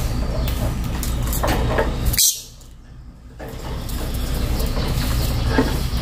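Caged lovebirds making short bursts of chatter and rustling over a steady low rumble. A sharp click comes a little after two seconds, then everything drops away for about a second before building back.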